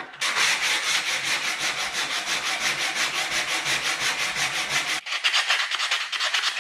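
Sandpaper rubbing against a wooden saw handle, hand-sanded with the grain in quick, even back-and-forth strokes. The strokes break off briefly about five seconds in, then go on.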